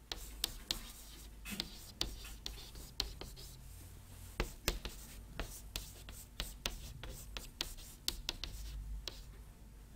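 Chalk writing on a chalkboard: a run of irregular sharp taps and short scratches as letters are written, over a faint low hum.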